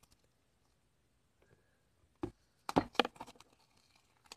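Thick white slime being stretched and folded by hand, giving sticky clicks and pops: a single one about two seconds in, then a quick cluster around three seconds in that thins out.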